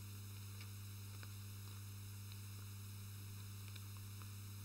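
Steady low electrical hum, with a few faint short rustles and clicks from sheets of paper being handled and shuffled.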